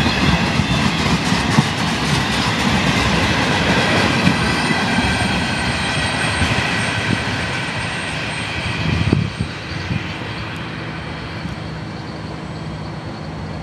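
Freight cars of a CSX Tropicana juice train rolling past close by: a dense rumble and clatter of steel wheels on rail, with a steady high squeal. About nine seconds in, the sound drops suddenly to a quieter, steady low hum.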